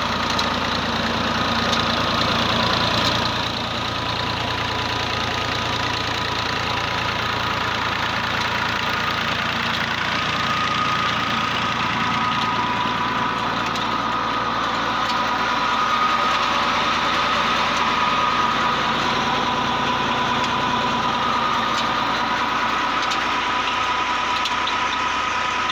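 Fiat 480 tractor's three-cylinder diesel engine running steadily while it powers a tube well turbine pump through a long PTO drive shaft. A steady high whine runs over the engine sound.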